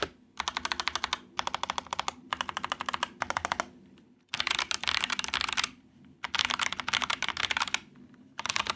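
Fast typing on a mechanical keyboard fitted with Momoka Shark tactile switches: rapid keystroke clacks come in bursts of a second or so, with short pauses between them.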